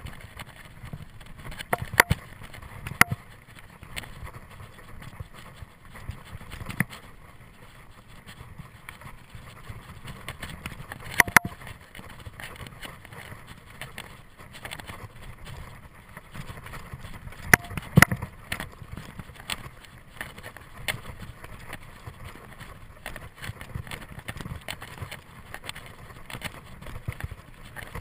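Mountain bike riding fast down a dirt trail: tyres rumbling on the ground and the bike rattling over bumps, with a handful of sharp clacks as it hits them.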